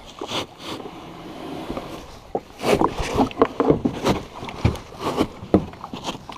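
Plastic sit-on-top kayak and paddle knocking, scraping and splashing in the shallows as the paddler settles in and pushes off. The knocks are sparse at first and come thick and irregular from about two and a half seconds in.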